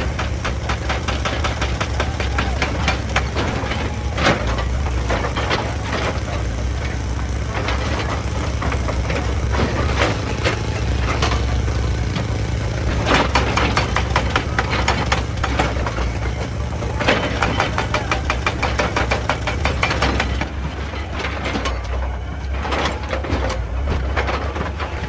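Excavator's diesel engine running steadily under a constant clatter of rock and stone knocking and scraping against the machine and each other; the clatter thins out near the end.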